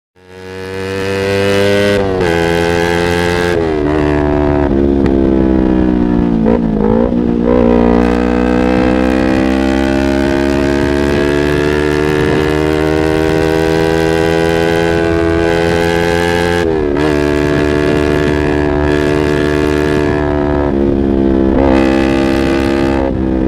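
Yamaha R25's parallel-twin engine running loud through a Proliner aftermarket exhaust. It starts up suddenly, its pitch rises and falls, dips a few seconds in, then climbs slowly for a long stretch before several quick drops and recoveries near the end.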